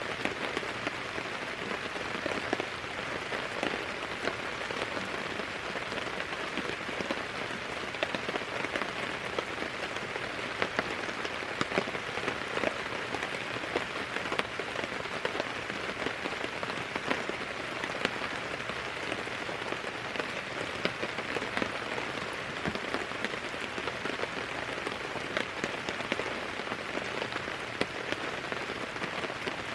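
Steady rain falling, with many separate drops striking close by as short, irregular ticks over an even hiss.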